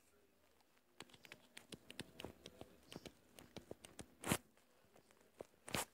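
Faint, irregular clicking and tapping of a stylus on a tablet screen during handwriting, starting about a second in, with two brief louder noises near the end.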